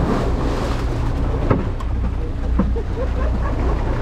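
Boat engine running with a steady low hum, under wind noise on the microphone and water washing against the hull.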